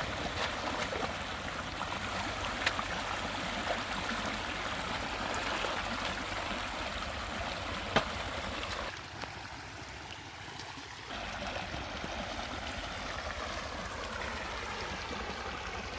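River water flowing steadily, with a few sharp clicks or knocks, the loudest about eight seconds in. The water sound drops briefly for about two seconds near the middle.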